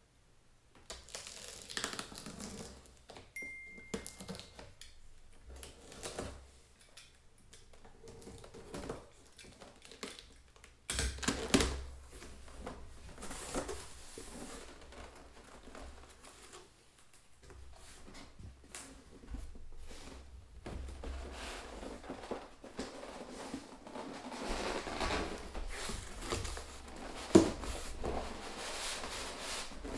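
A cardboard box being opened by hand: the top is slit and torn open and the flaps are pulled back, with irregular rustling, tearing and scraping of cardboard. A single sharp knock comes near the end.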